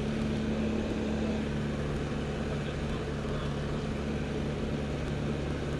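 L-13 Vivat motorglider's piston engine and propeller running steadily in flight, an even drone with a rush of air over the canopy, heard from inside the cockpit.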